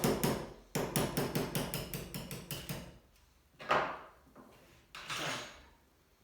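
Small hammer tapping quickly on a pin punch, about six or seven light blows a second, driving out the small retaining pins of a semi-auto shotgun; the tapping fades out about three seconds in. Two brief, softer handling sounds follow.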